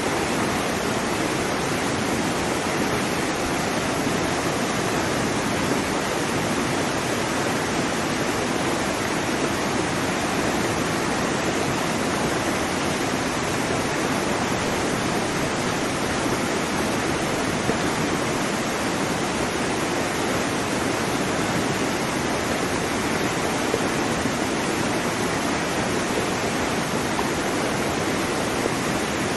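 Waterfall: a steady, even rush of falling water that holds unchanged throughout.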